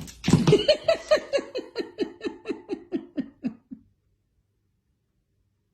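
A high voice laughing: about fifteen short pulses in a quick run, each falling in pitch, at about four a second, growing fainter and stopping after about four seconds.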